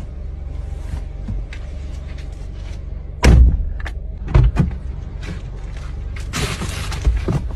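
Car door thumping shut, then more thumps and a rustle as the door is opened again and a plastic bag is brought in, over the steady low hum of the car.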